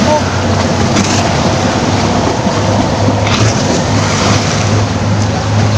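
Wake waves from a passing boat washing against the riverbank over a steady low engine hum.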